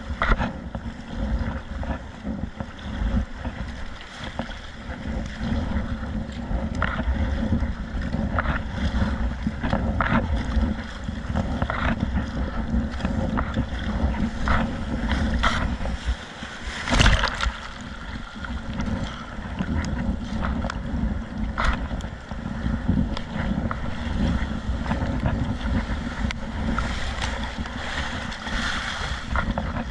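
Wind buffeting the microphone over water splashing and slapping around a kayak in rough sea waves, with many short splashes. One louder splash comes about halfway through.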